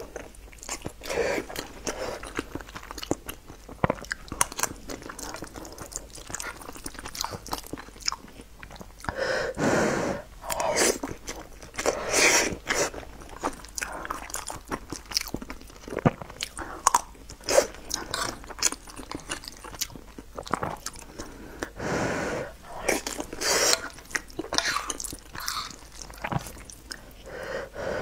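Close-miked eating: chewing and wet mouth sounds of soft, saucy food taken from a spoon, with many small clicks and smacks. Louder bites come every few seconds.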